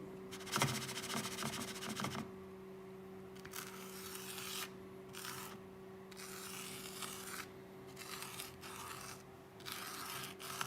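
Handwriting: a pen rubbing across a writing surface in a series of short strokes with brief pauses between them, over a faint steady hum.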